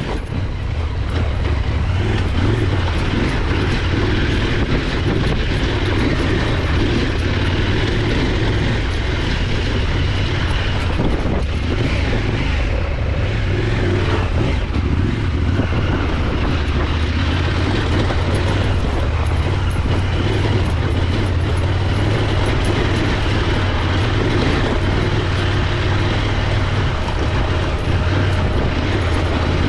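Off-road motorcycle engine running steadily as the bike is ridden, a continuous low drone with no pauses.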